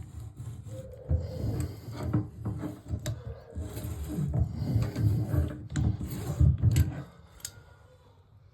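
Tub drain extractor tool being worked back and forth in a stuck tub drain flange: irregular metal scraping, grinding and clicking as the flange is forced loose, stopping about seven seconds in.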